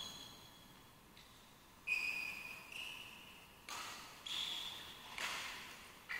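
Badminton rackets striking the shuttlecock in a rally: a string of sharp, ringing hits, about one a second, each echoing and fading in a large hall.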